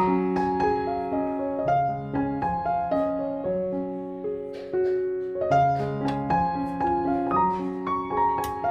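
Background piano music: gentle chords and a melody played at an even pace.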